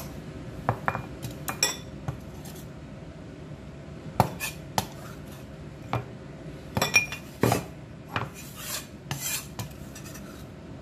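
A steel cleaver knocking and scraping on a wooden cutting board as it gathers up chopped green onion: irregular sharp taps, with a few longer scrapes about three quarters of the way through.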